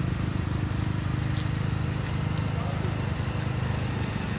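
A small petrol engine running steadily, a low pulsing drone.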